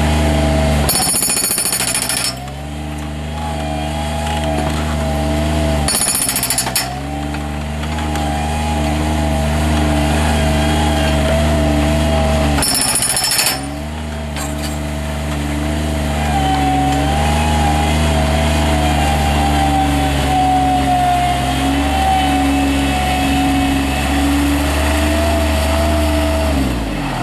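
Bobcat HB680 hydraulic hammer on a Bobcat MT55 mini track loader, hammering into concrete in rapid blows over the loader's steady engine and hydraulic drone. The hammering breaks off briefly three times, and the machine winds down near the end. It is running as it should.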